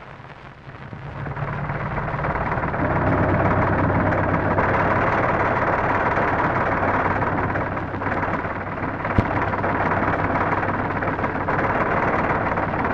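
Heavy earthmoving machinery, a wheel loader and dump trucks, running and working. The engine noise swells in over the first couple of seconds and then holds steady, with a single sharp click about nine seconds in.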